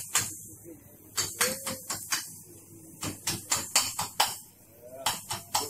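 Workshop clatter: about fifteen sharp knocks and taps in irregular quick runs, several a second, bunched about a second in, around three to four seconds in, and near the end.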